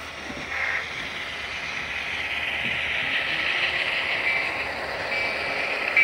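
O-gauge model train running on the layout: a steady hiss that swells in the middle, with a faint high tone near the end.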